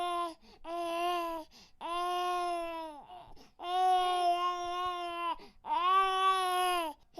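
A baby crying in five drawn-out wails with short breaths between, each held at a steady pitch and dropping off at its end; the later wails are longer and louder.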